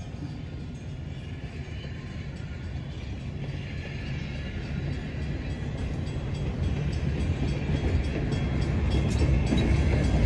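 A train drawing closer, its low rumble growing steadily louder, with a few sharp clicks near the end.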